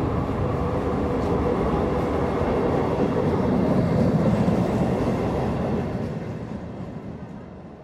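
A loud, steady low rumble of a passing vehicle, swelling to a peak around the middle and then fading away over the last two seconds.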